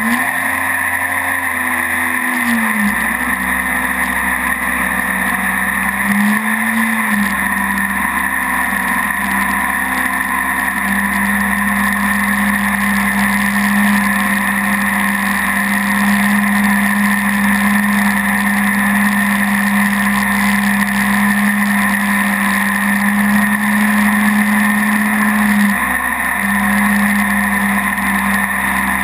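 Mini jet boat's engine and jet drive running steadily under way, with a constant drone and whine. Its pitch dips briefly a few times: near the start, about six seconds in, and again near the end.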